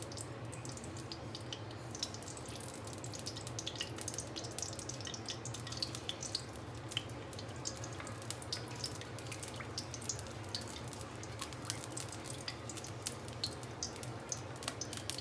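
Desi ghee heating and melting in a steel kadhai, with scattered small crackles and pops over a steady low hum. In the second half a wooden spoon stirs the melting ghee.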